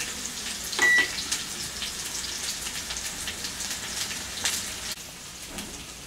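Chicken drumsticks sizzling and crackling in hot oil as they fry, a steady hiss full of fine pops that eases a little near the end. About a second in, a microwave oven's control panel is pressed and gives one short beep.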